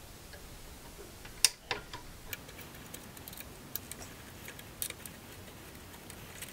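Allen key clicking against the screws in the 3D printer's frame as they are turned loose by hand: scattered sharp metallic ticks, the loudest about one and a half seconds in.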